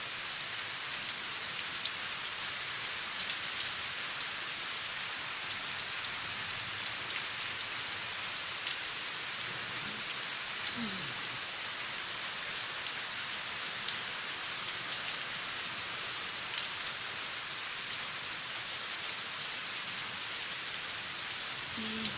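Hard rain falling steadily during a summer thunderstorm, an even hiss dotted with many sharp ticks of single drops striking.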